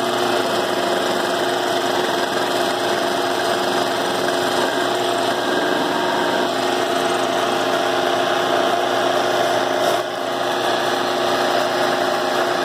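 Milling machine running steadily with its cutter facing off a dividing wall in a floor edger's dust housing, a continuous machining whine with a brief dip near the end.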